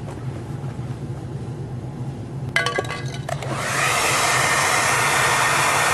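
Handheld hair dryer switched on about three and a half seconds in, after a short cluster of clicks and clatter, then running steadily with an even rush of air and a high whine, heating the dented car bumper. A low steady hum runs underneath throughout.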